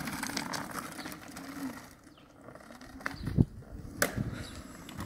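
Electric hub motors of a hoverboard go-kart whining, the pitch rising and falling with speed, then fading about two seconds in. A loud thump comes about three and a half seconds in, and a sharp click follows near four seconds.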